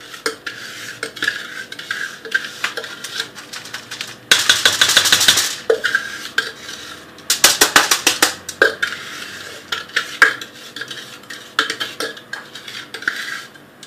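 A utensil scraping and clinking against a glass mixing bowl as buttered Oreo crumbs are turned out into a foil-lined pan. There are scattered clinks, with two bouts of rapid clattering about four and seven seconds in.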